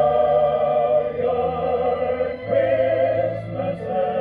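Vocal music playing from a 45 rpm record on a 1960s HMV (His Master's Voice) record player, heard through its own speaker with little treble above the mid-range.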